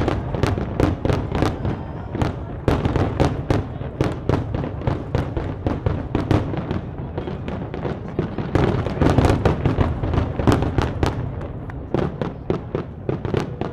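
Fireworks finale: aerial shells going off in a rapid barrage, several bangs a second over a continuous low rumble. The barrage is heaviest about two-thirds of the way through and starts to thin near the end.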